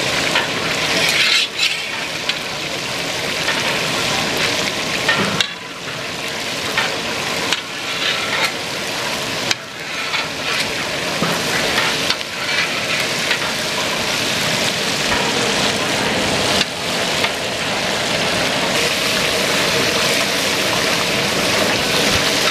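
Chicken pieces deep-frying in a large wok of hot oil: a steady, dense sizzle, with a metal spatula and slotted ladle stirring through the oil.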